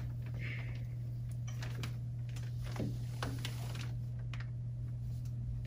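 Scattered light clicks and taps of painting at a table: a brush against a small plastic paint cup and a rock being handled and set down. A steady low hum runs underneath.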